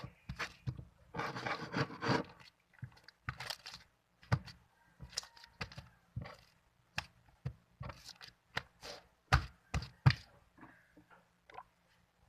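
Sticky, half-activated glue slime being kneaded and pulled by hand, giving irregular sharp sticky pops and clicks, with two louder snaps a little after the middle.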